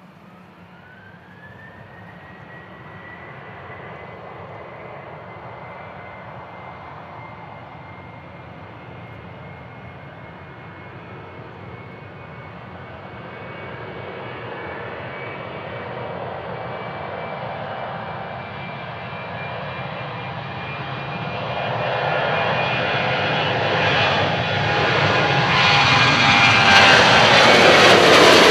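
Boeing 737-800's CFM56-7B turbofan engines spooling up, their whine rising in pitch over the first two seconds and then holding steady. The whine and jet roar grow steadily louder as the airliner comes closer, loudest near the end.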